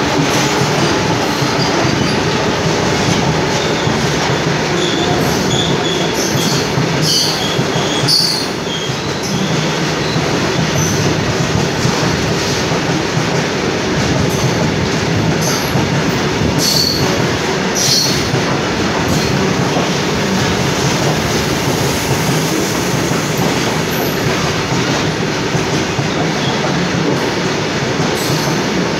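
Indian Railways goods train of covered wagons rolling past close by: a steady rumble and clatter of wheels on the rails. Short high wheel squeals come a few seconds in, and sharp clanks are heard now and then.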